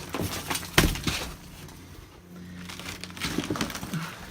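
Styrofoam ceiling insulation and its attached paneling being pried and pulled down, crackling and cracking as it breaks, with one sharp crack a little under a second in and more crackling near the end.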